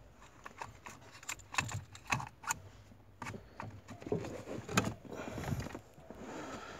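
Scattered metallic clicks, knocks and clinks as an electric power-steering motor assembly is handled by hand and set back onto the steering column, with hand tools clinking on the floor mat.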